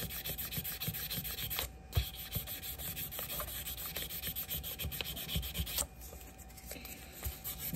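Fine 3000-grit sandpaper rubbed back and forth by hand on the brass bolster of a folding pocket knife, a quick rasping hiss of short strokes that eases off near the end. The strokes are scrubbing corrosion off the brass.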